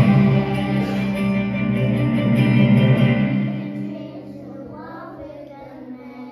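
Music with a group singing, on long held notes that fade away about four seconds in.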